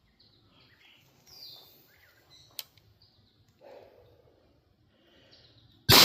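Faint birds chirping, a sharp click about two and a half seconds in, then right at the end a single shotgun blast: an 18-inch-barrel New England Arms shotgun firing 2¾-inch double-aught buckshot, its report starting to die away.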